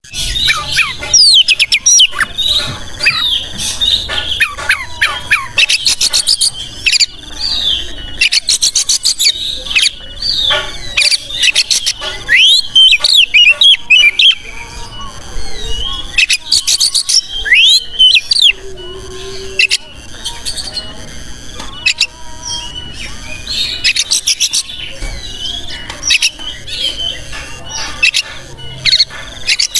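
Oriental magpie-robin (kacer) in full, vigorous song: a continuous loud run of sweeping whistles, chattering phrases and bursts of very rapid rattling trills.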